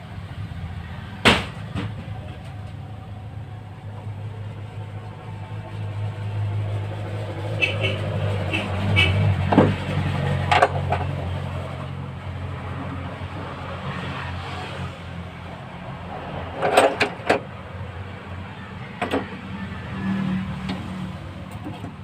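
Sharp metal clicks and taps of hand tools working on the valve adjusters of a Suzuki F6A engine, setting valve clearance with a feeler gauge, scattered over a steady low hum.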